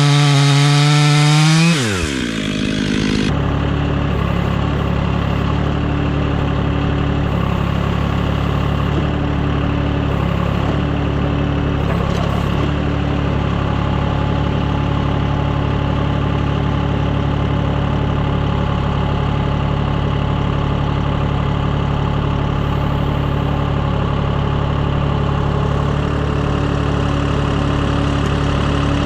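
Stihl MS 500i two-stroke chainsaw at full throttle, then its pitch falls away as the throttle is released about two seconds in. After that an engine idles steadily.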